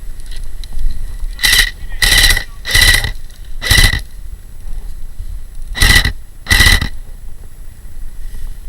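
Airsoft electric gun firing six short rapid-fire bursts, the gearbox cycling with a rattling clatter and a motor whine, in two groups: four in the first four seconds, then two more about six seconds in.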